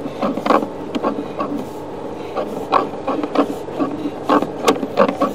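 Sewer inspection camera's push cable being fed into the pipe: irregular clicks and knocks over a steady hum.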